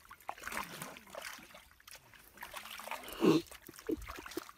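Muddy water in a shallow mud hole sloshing and trickling, with scattered small splashes and knocks and one louder splash about three seconds in.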